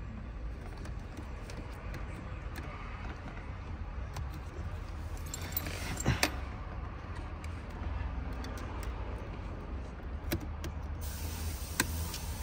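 Scattered small clicks and clinks of metal and plastic parts being worked loose by hand, over a steady low hum. The loudest clicks come about six seconds in and again near the end.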